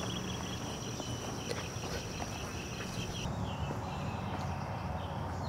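Insects chirping in the trees in rapid rhythmic pulses over a steady high whine; the whine stops about three seconds in. Footsteps on dirt and camera handling noise sit underneath.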